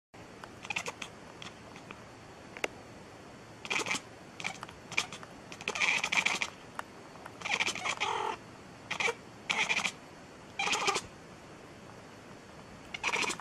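Domestic cat meowing repeatedly: about a dozen short meows, a few seconds apart at first and then coming about once a second, the longest ones near the middle.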